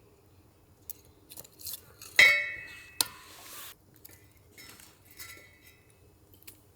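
Metal camping cookware and utensils being handled: light clicks and taps, then one loud ringing metal clink a little over two seconds in. A sharp click with a short hiss follows.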